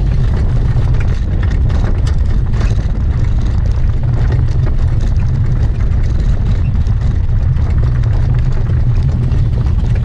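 Steady, loud wind rumble buffeting the microphone of a camera moving at speed, with faint irregular ticks above it.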